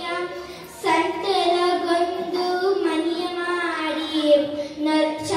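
A young girl singing solo into a microphone, holding long notes that glide up and down, with a brief pause about a second in.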